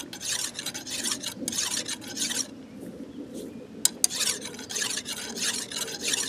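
Flat hand file rasping in short repeated strokes, about three a second, lengthwise along a chrome hydraulic cylinder rod, smoothing cured JB Weld epoxy filled into its scores at the finishing stage. The strokes stop for about a second and a half midway, then resume.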